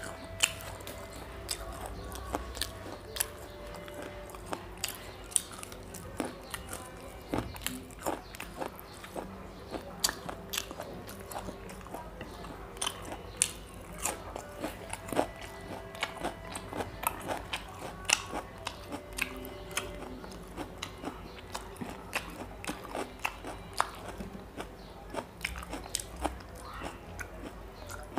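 Close-up chewing and mouth sounds of a person eating rice and chicken curry by hand: frequent wet smacks and clicks, irregular and many per second.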